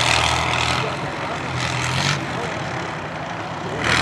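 T-55 tank's V12 diesel engine running as the tank drives across a sandy field, a steady low drone under a broad rushing noise that swells at the start and again near the end.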